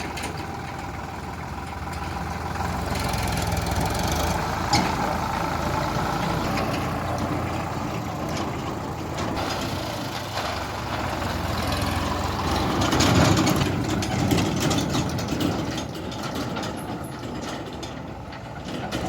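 Heavy diesel machinery engine running steadily, swelling louder for a moment about thirteen seconds in, with a single sharp knock about five seconds in.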